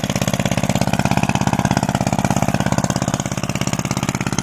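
A small engine running steadily at an even idle, with a fast regular pulse.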